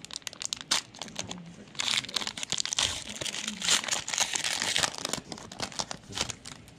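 Plastic cello wrapper of a Panini Mosaic trading-card pack crinkling and tearing as it is opened by hand, with the densest crackling from about two to five seconds in.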